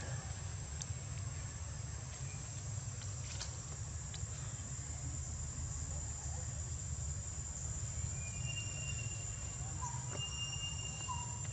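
Outdoor ambience: a steady, high-pitched insect drone over a low rumble, with a few faint short chirps in the second half.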